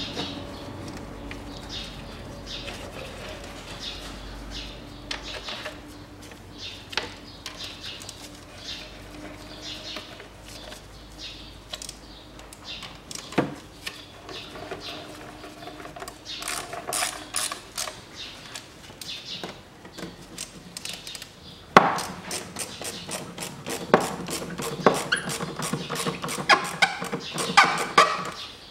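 Hand socket ratchet clicking as bolts are turned, with short scattered runs at first and rapid, dense runs of clicks in the last six seconds or so.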